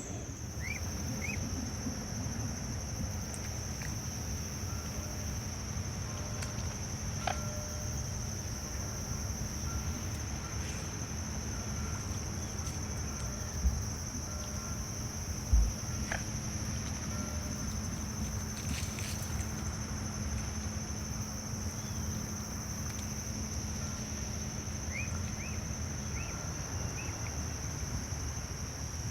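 Steady, high-pitched drone of insects singing without a break, over low outdoor rumble. A few short rising bird chirps come near the start and again near the end, and two dull thumps fall a little past the middle.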